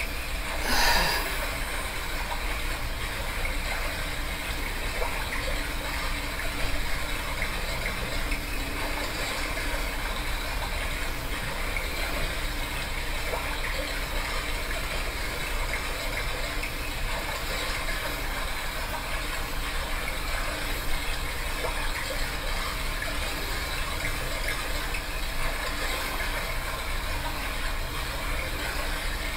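Running-brook recording played by a HoMedics sound machine: a steady hiss of flowing water. A short louder swell comes about a second in.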